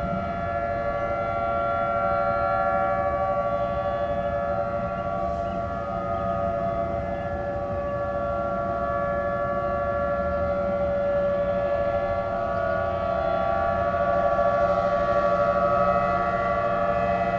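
Outdoor tornado warning sirens sounding a steady tone during a test. Several steady pitches sound at once, with a slight rise and fall in loudness and a little louder near the end.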